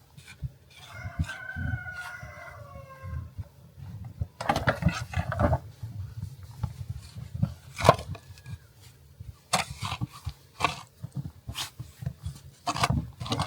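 A rooster crows once, about a second in, a drawn-out call. After that comes a string of short, sharp scrapes and crunches in snow.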